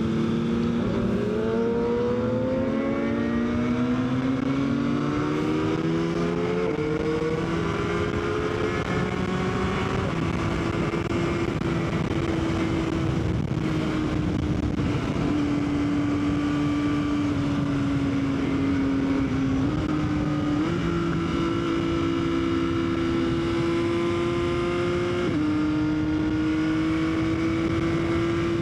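Yamaha XSR900's inline-three engine under way. It rises in pitch as it accelerates, drops with a gear change about seven seconds in, then holds a steady cruise with further shifts later on. A steady wind rush runs under it.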